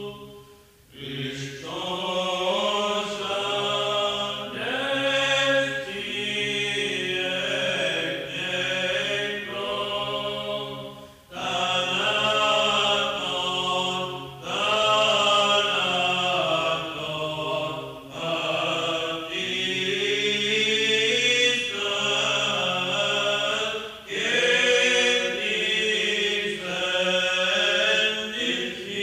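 Male voices singing Orthodox chant: a melody moving over a steady held drone note (the ison), sung in long phrases with short breaks between them.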